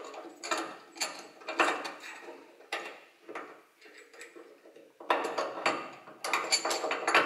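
Steel engine-mounting bolt and offset cones clicking, knocking and scraping against a Lambretta frame's engine mount as they are pushed and twisted in by hand. The parts will not go in, because the bore in this frame is too tight for the concentric bolt. The knocks come in short clusters, thin out in the middle and pick up again near the end.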